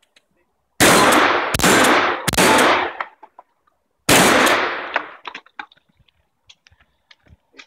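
Remington 870 pump-action shotgun firing four shots: three about three-quarters of a second apart, then a fourth about two seconds later, each loud report trailing off in a short ringing echo. Scattered light clicks follow the last shot.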